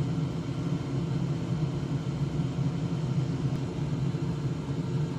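Hot air rework station blowing steadily, a constant fan-driven whoosh and hum, while the circuit board is heated to soften the solder so new knobs can be pushed into place.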